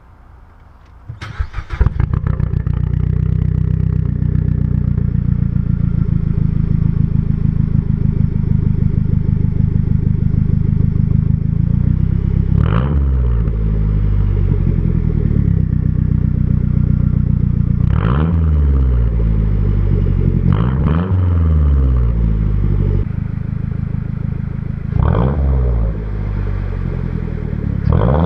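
A car engine breathing through a new aftermarket exhaust is cranked and catches about two seconds in, then idles steadily. It is blipped in short revs about five times, each one rising sharply and dropping back to idle.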